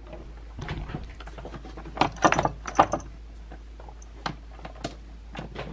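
Handling noise from a multimeter and its test leads being picked up and set down in a plastic scooter deck: a scatter of light clicks and knocks, busiest about two to three seconds in.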